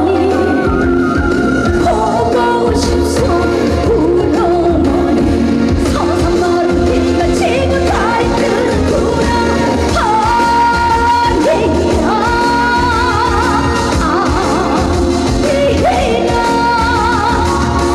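Live trot song: a woman singing a wavering, vibrato-laden melody over a full band accompaniment.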